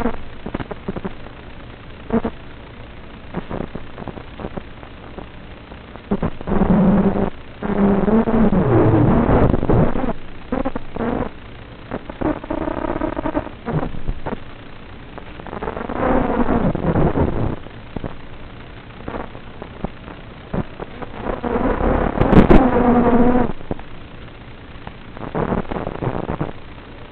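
FPV quadcopter's motors and propellers heard through its onboard microphone, whining in several surges whose pitch rises and falls as the throttle is punched and eased. Between the surges there is a rough noisy hiss with crackles, and the sound is muffled.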